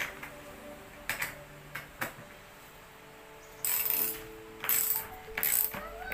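Soft background music under a few sharp clicks and knocks, then three short bursts of harsh noise in the second half.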